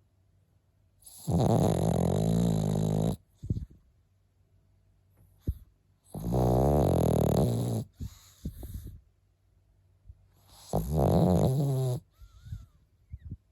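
Pekingese dog snoring: three long, loud, rumbling snores about four to five seconds apart, with small snuffles in between.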